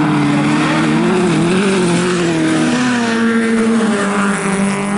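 Bilcross race car engines running hard, their note wavering with throttle and dropping in pitch about three seconds in, over a steady hiss of tyres on the loose track surface.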